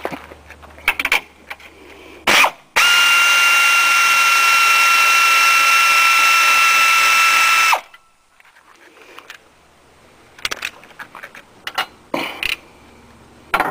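A power tool's motor driving a socket on a 15 mm nut, running with a steady whine for about five seconds and then stopping abruptly. The nut is being spun off to free the upper motor mount cover. Short clicks and knocks of tool handling come before and after the run.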